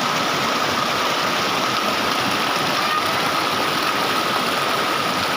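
Waterfall rushing steadily, an even roar of falling water, with a faint steady high tone over it.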